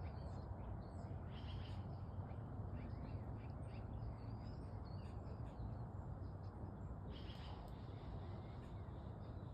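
Birds chirping and calling in short scattered bursts over a steady low background rumble.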